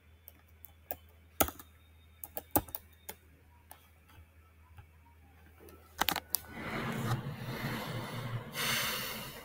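Computer keyboard keystrokes and clicks, typing a search word, a dozen or so separate taps spread over the first six seconds. After that comes a louder, steady rustling noise for the last few seconds.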